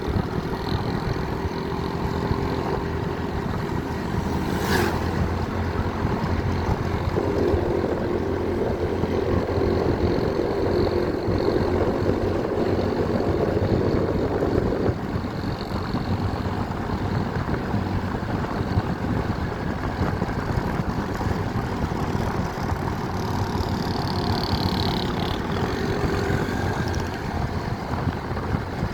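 A vehicle engine running steadily, louder for a stretch from about 7 to 15 seconds in. There is a sharp click about 5 seconds in.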